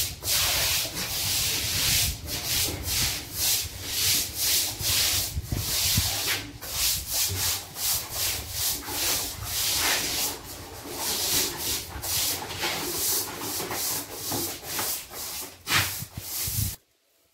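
Hand sanding of a plastered wall, sandpaper rasping in a steady run of quick back-and-forth strokes that stops abruptly near the end.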